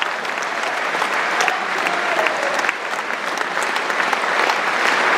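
Theatre audience applauding steadily, with many sharp individual claps.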